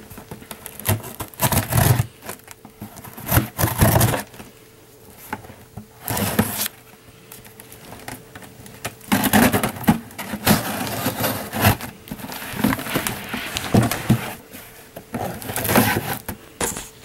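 A cardboard mailing box being handled and opened by hand: irregular scraping and rustling of the box and its packing, coming in bursts with short pauses between them.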